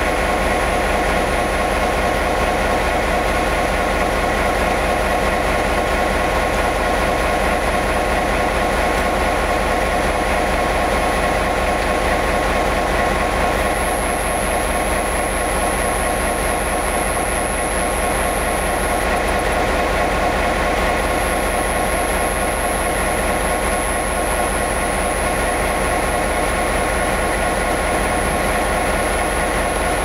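The diesel engine of an EMD G12 locomotive, an EMD 567 two-stroke V12, running steadily while the locomotive stands still. It gives an even low rumble with a thin high-pitched whine above it.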